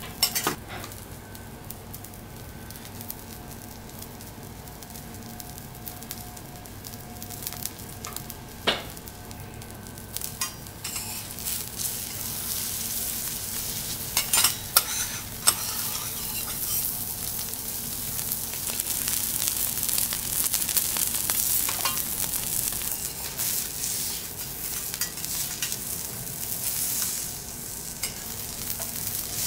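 Korean beef sirloin steak sizzling on a hot steel teppanyaki griddle, the sizzle swelling louder from about eleven seconds in. A few sharp clinks of metal spatulas on the steel plate come through it.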